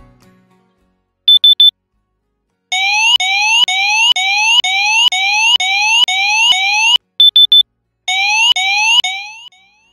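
Wireless integrated alarm unit wired to a proximity sensing mat gives three quick high beeps about a second in, the sign that the system is activated. It then sounds a repeating rising-pitch whoop about twice a second, the alarm for the hand having left the mat. The whoop stops suddenly, three beeps come again, and a few more whoops sound before fading out.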